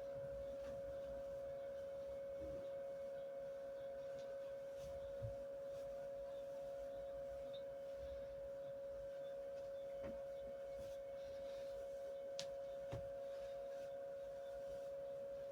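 A steady, unchanging high hum-like tone held throughout, with a few faint soft knocks scattered through it.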